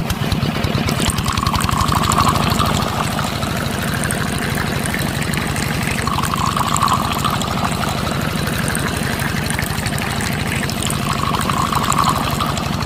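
A small motor runs steadily with a rapid, even pulse. A wet swishing sound comes round about every five seconds, three times in all.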